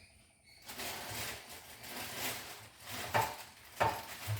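Plastic parts of a mixer grinder's food-processor attachment being handled, rustling and scraping, with three sharp knocks in the second half as pieces are set down or fitted together.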